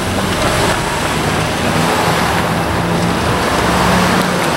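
Road traffic moving off over the crossing: cars pulling away and driving past, a steady mix of engine hum and tyre noise.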